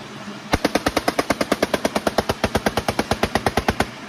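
Toy assault rifle's machine-gun sound effect: a sudden burst of rapid, evenly spaced shots, about ten a second, lasting a little over three seconds and stopping abruptly.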